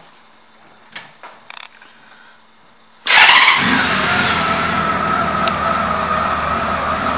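A few light clicks, then about three seconds in the 1999 Honda Valkyrie's 1520 cc flat-six engine starts abruptly and settles into a steady idle.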